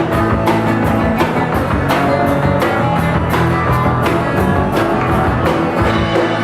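A live pop-punk band playing acoustic with no singing: acoustic guitars strummed hard to a quick, steady beat.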